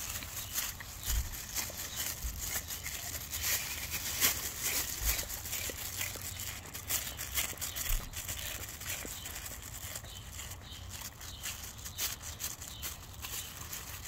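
A dog licking food off a plastic-covered board: quick, irregular wet licks with crinkling of the plastic sheet under its tongue.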